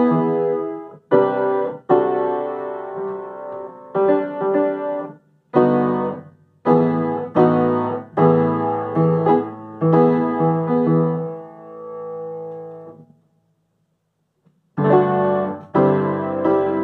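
Upright piano played with both hands in chords, in phrases broken by short breaks. The playing stops for about a second and a half near the end, then resumes.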